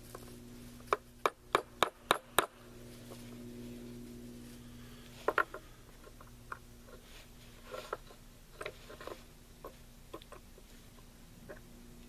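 Six quick, sharp knocks about a third of a second apart, then scattered lighter clicks and knocks: hand work on the metal parts of an AR-style rifle upper. A steady low hum runs underneath.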